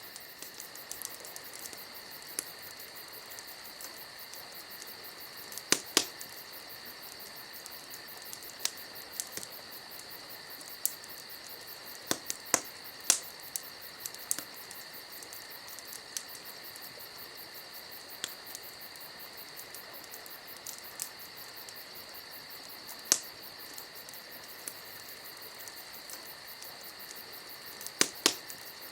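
Crickets chirring steadily, with a campfire crackling and giving off occasional sharp pops, a few of them louder, near the middle and twice near the end.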